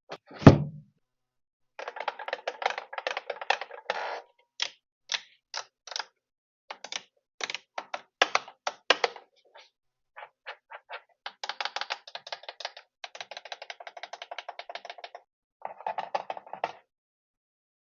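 A heavy thump about half a second in, then bursts of rapid clicking and many single sharp clicks, like keys being pressed, from hard plastic being handled: the Radiomaster TX16S MK3 MAX radio controller and its packaging.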